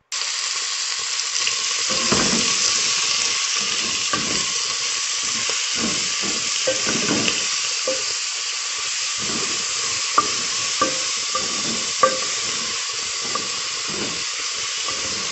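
Sliced sausage, meat and vegetables sizzling and frying in an aluminium pressure cooker as they are stirred with a wooden spoon, with a few knocks of the spoon against the pot about ten to twelve seconds in. This is the meat and seasoning being sautéed for the beans.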